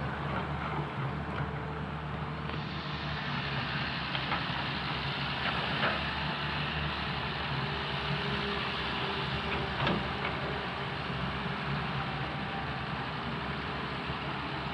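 Caterpillar excavator's diesel engine running steadily under load, with a few sharp knocks from the bucket at work, the clearest about six and ten seconds in.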